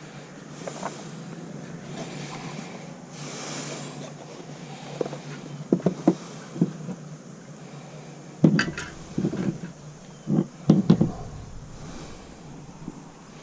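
Scattered light knocks and clatters of objects being handled. They come in a small group partway through and a louder group in the second half, with slow breathing close to the microphone between them.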